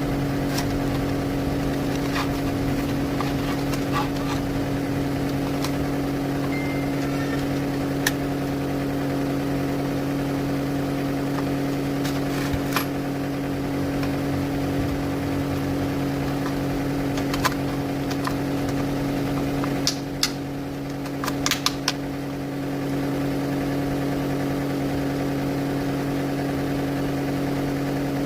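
A steady machine hum, with a few sharp clicks and taps about a third, halfway and three-quarters of the way through.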